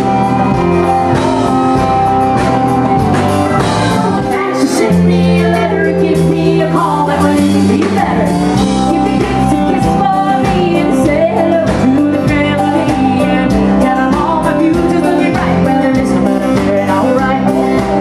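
A live band performance: a woman sings the lead vocal into a microphone over guitars and drums.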